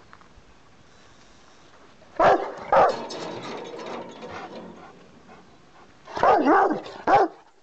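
Rottweiler barking: two deep barks about two seconds in, then a quick run of about four barks near the end.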